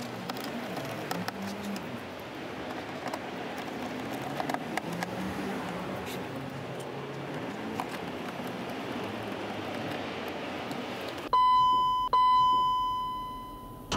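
Faint clicks and rustling of a hand ratchet driving the bumper's lower screws. Near the end, an electronic chime: two beeps on one high tone about a second apart, the second ringing and fading out, louder than anything before it.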